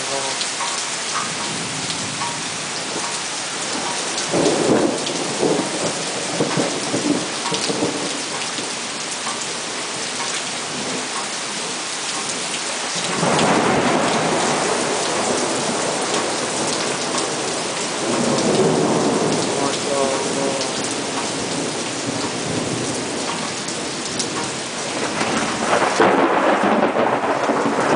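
Heavy rain pouring steadily, with thunder rolling several times, the longest rumbles about halfway through and again near the end.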